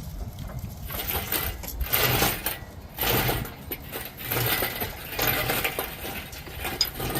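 Metal tools and engine parts clinking and rattling as they are handled, in several irregular bursts, over a low rumble of wind on the microphone.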